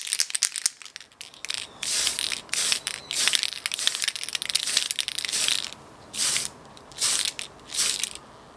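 Aerosol can of Mr. Color hobby spray paint giving about eight short hissing sprays, each under a second, as a plastic model part is coated. A quick run of clicks comes first, just before the sprays.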